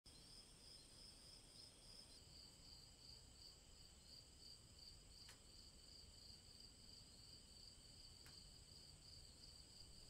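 Night crickets chirping: a faint, steady, high-pitched chirping of several crickets at different pitches, the loudest pulsing about three times a second, with two faint ticks in the middle.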